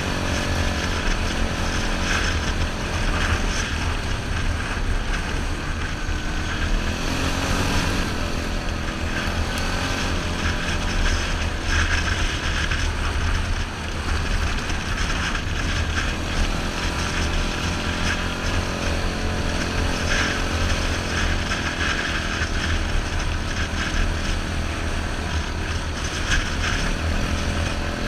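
Yamaha Grizzly 660 ATV's single-cylinder four-stroke engine running under way on a trail ride, its pitch rising and falling a little with the throttle, with wind buffeting the helmet microphone.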